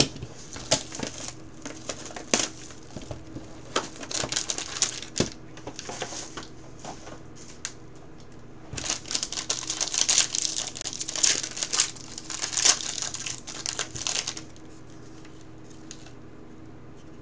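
A trading-card box being handled, with scattered sharp clicks and taps. From about nine seconds in comes a few seconds of crinkling as a foil card-pack wrapper is torn open.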